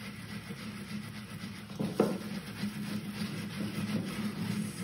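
A sponge wet with white spirit rubbing over the textured wax surface of a sculpture, blending freshly filled wax into it. A steady low hum runs underneath, and there is a single knock about two seconds in.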